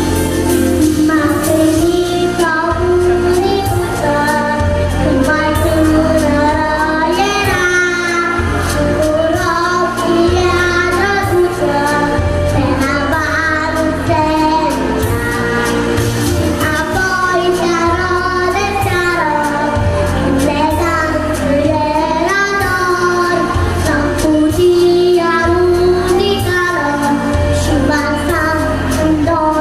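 A child singing a song over a backing track with a steady bass beat.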